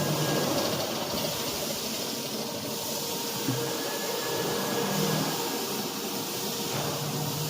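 A CNC router's water-cooled spindle running steadily as it mills steel, a steady machine whine with a strong hiss and a low hum that comes and goes.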